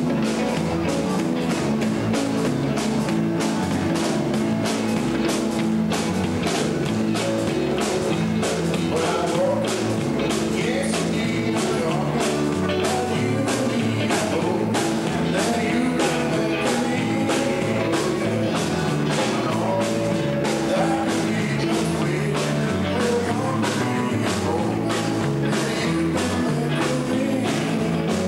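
Live rock and roll band playing: electric guitars over bass and drums with a steady beat, and a man singing.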